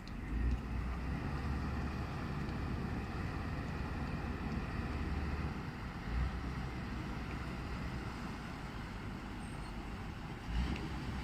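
Motor vessel's engine running steadily under way, a low rumble with a few brief surges.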